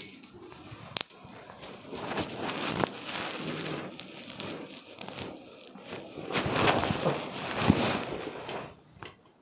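Hands rubbing and working over the body in a massage, a rustling friction sound in two longer spells, the second the louder. Two sharp clicks about a second apart come at the start.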